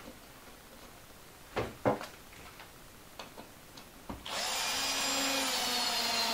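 Cordless drill driving a wood screw into soft wood without a pilot hole, starting about four seconds in and running steadily, its motor pitch slowly dropping as the screw goes in. Before it, a couple of light knocks as the bar is set in place.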